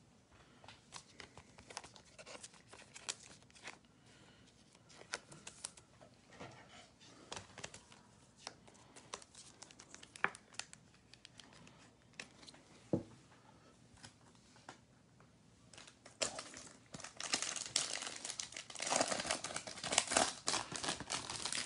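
A few faint scattered clicks and taps, then from about two-thirds of the way in, the foil wrapper of a Topps Chrome trading-card pack crinkling steadily as it is handled and torn open.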